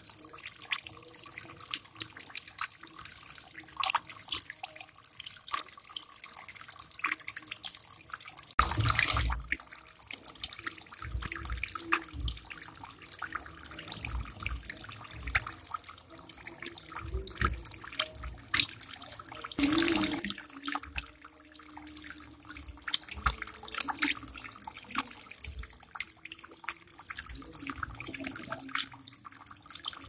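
Homemade bamboo water fountain running: several thin streams of water fall steadily from the bamboo spouts and troughs and splash into a tray of pebbles. A couple of dull low thuds come about a third and two thirds of the way through.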